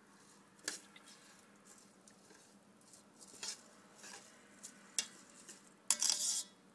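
A spoon stirring rice, water and seasoning in a rice cooker's inner pot: a few short scrapes against the pot, the loudest a longer scrape near the end.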